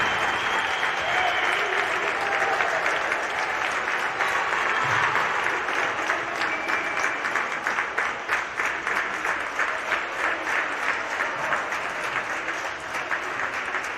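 Spectators applauding and cheering in a sports hall, with shouts near the start. From about six seconds in, the clapping settles into regular rhythmic claps.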